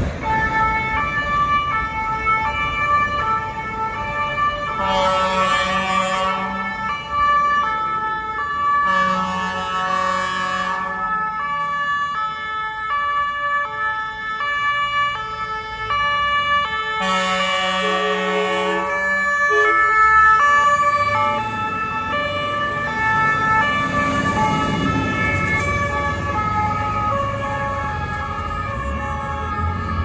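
Two-tone sirens of several fire engines sounding together, alternating between two pitches, with three air-horn blasts of about two seconds each, about five, nine and seventeen seconds in. The horn blasts signal a blocking van to get out of the way.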